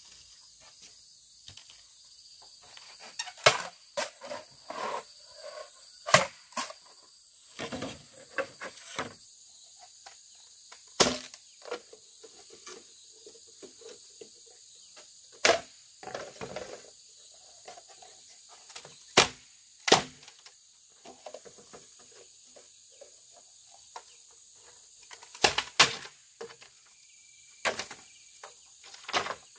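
Steady high-pitched insect chirring with irregular sharp knocks and rustling from handwork over it, the knocks the loudest sounds.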